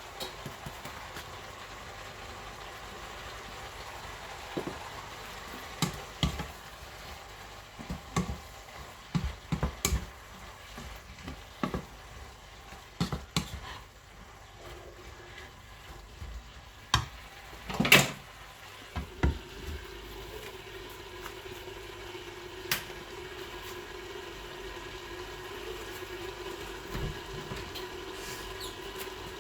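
Stir-fry cooking: food sizzling steadily in a pan while a spatula knocks and scrapes against it at irregular moments, the loudest strike about 18 seconds in. From about 19 seconds a steady hum joins the sizzle.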